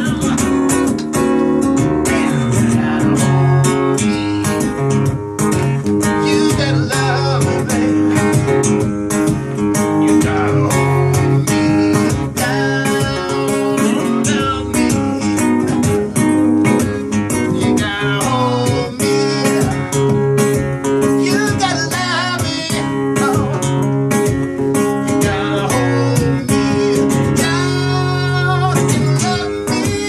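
Live solo performance: a cutaway acoustic-electric guitar strummed in a driving rhythm while a man sings into a microphone at times.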